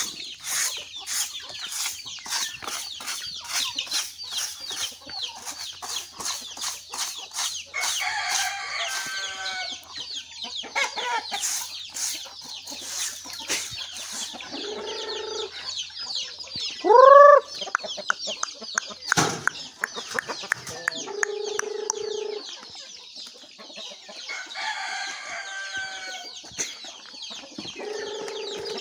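A flock of chickens: chicks peeping constantly, hens clucking several times, and one loud call that rises then falls a little past halfway. In the first half a wooden plank scrapes over the dirt in repeated strokes.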